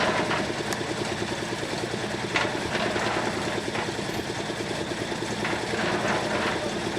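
Heavy engine of construction machinery running steadily with a fast, even pulse, with a few short sharp knocks over it.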